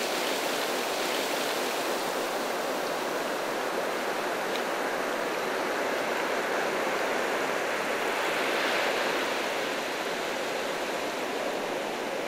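Shallow surf washing over wet sand: a steady rush of water that swells a little about eight or nine seconds in.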